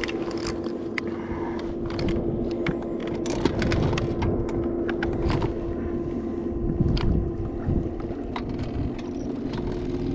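Steady whine of an electric trolling motor holding the boat, with scattered clicks and taps from a spinning rod and reel being handled.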